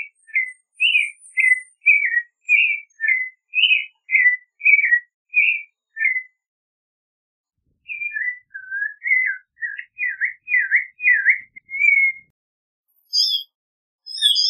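Clay-colored thrush singing: a run of short, clear whistled phrases at about one and a half a second, a pause of over a second midway, then lower phrases that swoop down and back up, and a few higher notes near the end.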